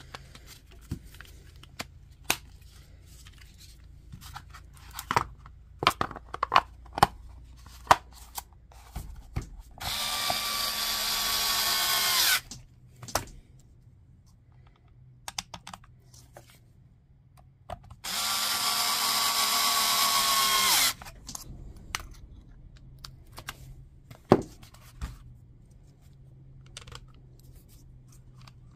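A power drill-driver runs twice, for about two and a half and then three seconds, each run winding down as it stops, driving screws to close up a battery pack's plastic case. Light clicks and knocks of plastic parts being handled come between the runs.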